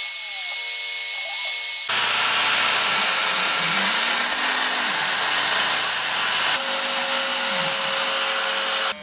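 CNC router milling wood: the spindle runs with a steady high whine over cutting noise, while the stepper motors glide up and down in pitch as the gantry moves. The sound jumps louder about two seconds in and shifts again near the end.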